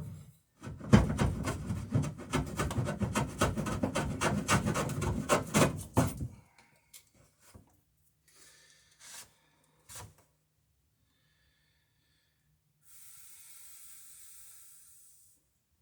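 Hand tool worked rapidly back and forth on a wooden plank, about seven rasping strokes a second for some five seconds. Then a few light knocks, and a steady hiss for a couple of seconds near the end.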